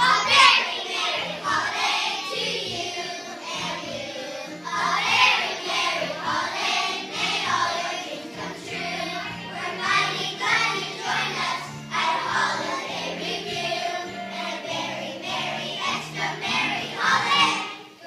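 Children's choir singing a song in unison with a musical accompaniment, its low notes stepping along steadily beneath the voices.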